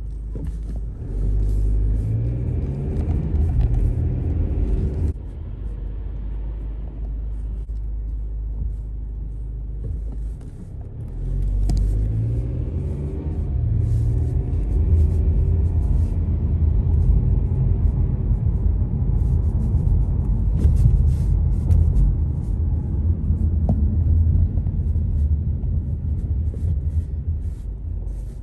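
Car running at town speed, heard from inside the cabin as a steady low rumble of engine and road noise. The engine pitch rises as the car pulls away about a second in and again about eleven seconds in.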